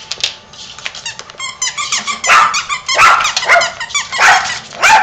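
Small Yorkshire terriers giving quick, high-pitched yips and squeaky whines, one after another. The calls grow much louder about two seconds in.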